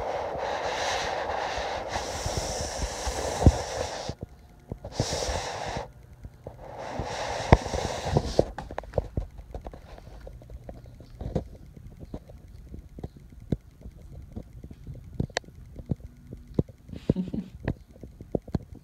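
Brown paper bag crinkling and rustling as a kitten plays inside it, in three loud bursts over the first half. After that come scattered light taps and knocks as the kitten moves about on a wooden floor and tugs at a blanket.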